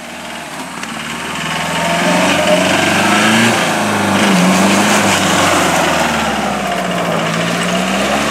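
2012 Troller T4's 3.0 turbo-diesel engine pulling under load as the jeep climbs a rutted dirt trail, its pitch rising and dipping with the throttle. It grows louder over the first two seconds and then holds.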